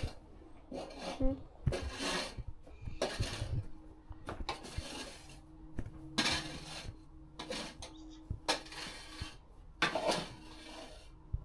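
A small plastic stable rake scraping wood shavings and droppings across rubber stable matting, about one stroke a second, with clattering knocks of the plastic tools and toy wheelbarrow.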